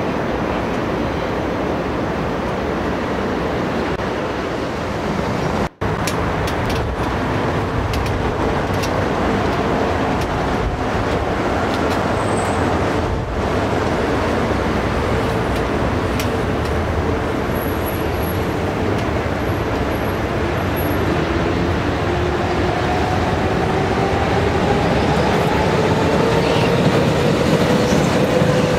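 Hamburg Hochbahn DT2 U-Bahn trains running on an elevated steel viaduct: a steady rolling rumble of wheels on rail. A whine rises in pitch over the last several seconds as a train passes close.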